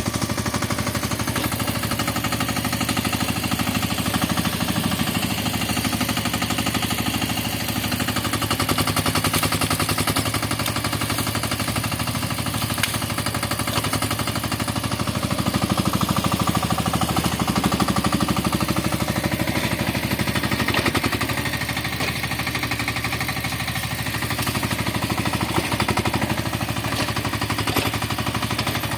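Carter CT10 mini excavator's small engine running steadily with a rapid, even firing beat, its level rising and falling a little as the machine works.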